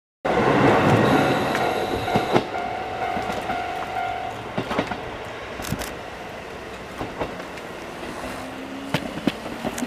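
KiHa 40 diesel railcar running close by and drawing away. The engine and running noise are loudest in the first couple of seconds, then die down, with wheels clicking over rail joints and points.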